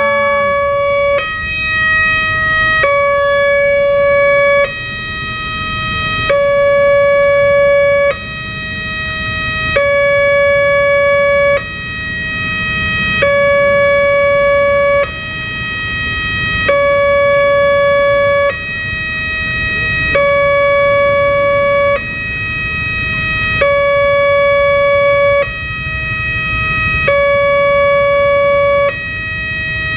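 Railway level-crossing warning siren sounding a steady two-tone alternation, switching between a louder lower tone and a slightly higher one about every second and three quarters.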